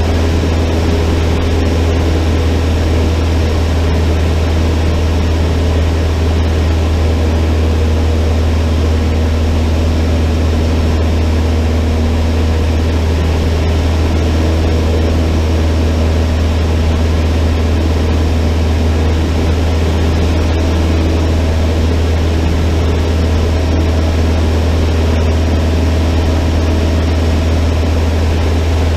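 Cessna 152's four-cylinder Lycoming engine and propeller running steadily at constant power, a loud, even drone with a strong low hum.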